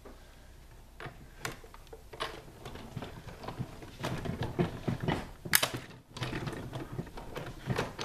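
Sizzix Big Shot manual die-cutting machine being hand-cranked, the plate sandwich with the dies rolling through the rollers with uneven clicks and rumbling, and one sharper click about five and a half seconds in.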